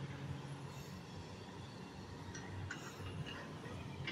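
Diesel engines of demolition excavators running as a steady low hum, with a few faint clinks a little past the middle.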